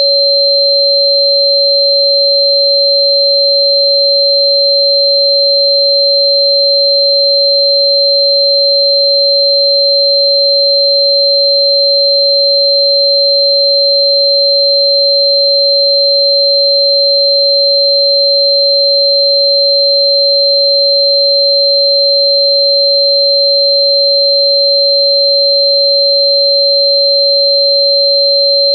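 Steady electronic pure tone at about 559 Hz, the frequency given for Chuan Bei Mu (Sichuan fritillary bulb), held unbroken, with a second steady, much higher tone sounding above it.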